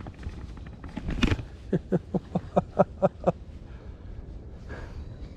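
A man laughing in a quick string of about ten short, pitched "ha"s, about five a second, after a brief noisy burst about a second in.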